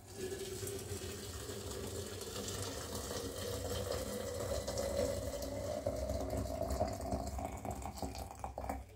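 Water running steadily, with a tone that slowly rises in pitch.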